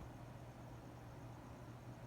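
Faint steady low hum over a quiet hiss, with no distinct event.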